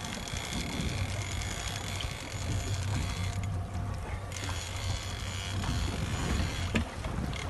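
Big-game fishing reel clicking steadily with an albacore tuna on the line, pausing for about a second midway and again near the end. A low rumble of boat and sea runs underneath.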